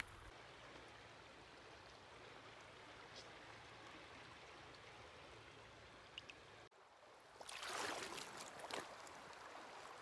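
Faint, steady rush of shallow river water. About two-thirds of the way through, the sound drops out for an instant, then there is a louder bout of water splashing and sloshing for a second or two.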